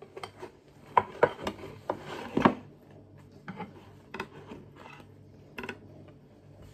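Slotted spatula scraping and knocking against a pan, prising out toad in the hole that has stuck to it because the pan was not oiled. The clatter is busiest in the first two and a half seconds, then a few lighter knocks.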